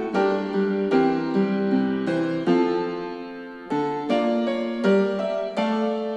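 Piano music playing back through small Mars Gaming MS1 computer speakers. Struck notes and chords come about twice a second, each fading after it is struck, with almost no deep bass.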